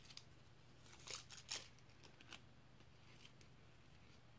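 Faint rustling and crinkling of a piercing needle's packaging being handled and opened: a short cluster of scratchy rustles about a second in, then a couple of single ones later.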